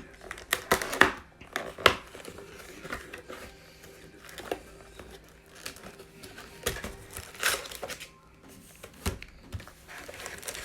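Plastic packaging of Prizm football trading cards crinkling and tearing as it is opened by hand, in irregular crackles with a few louder rips.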